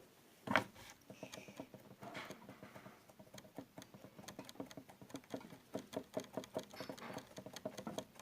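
Homemade slime being kneaded and stretched by hand, giving a steady stream of small sticky clicks and pops, with one louder pop about half a second in.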